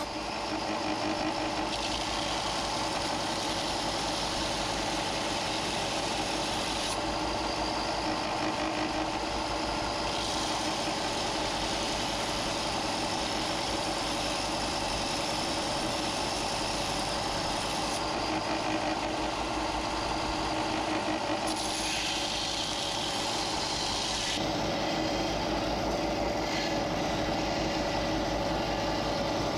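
Electric shop machine motor running steadily with a constant hum. The higher hiss changes abruptly several times, as at cuts between clips.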